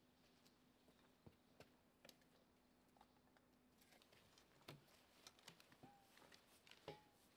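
Near silence, broken by faint scattered taps and clicks. They come more often in the second half, as a cardboard box is handled, and two short, faint, falling squeaks come near the end.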